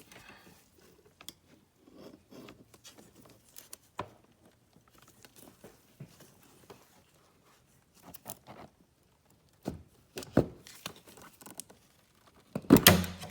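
Hands working an OBDII cable taped to a metal coat hanger through a tight poked hole: scattered rustling, scraping and small clicks, a couple of sharper knocks after about ten seconds, and a loud burst of scraping and rubbing near the end as the cable is pulled through.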